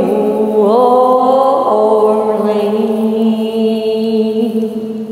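Wordless closing note of a karaoke song: a note slides up and then settles into one long held tone, which begins to fade at the very end.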